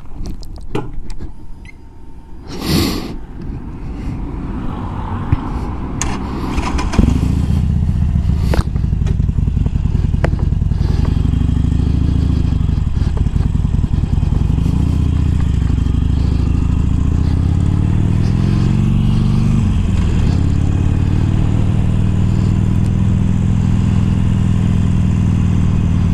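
Harley-Davidson Iron's V-twin engine with Screamin' Eagle slip-on exhausts, clatter and scraping as the rider gets going, then the engine comes in loud about seven seconds in. Its note rises and falls as it pulls away and goes up through the gears, then holds steady at a cruise.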